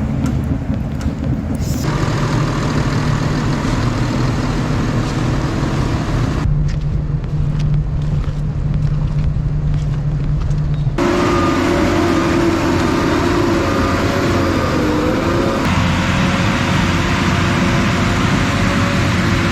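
Heavy machine engines running steadily under load, in several short stretches joined by abrupt cuts. The later stretches carry a higher, wavering engine or hydraulic whine.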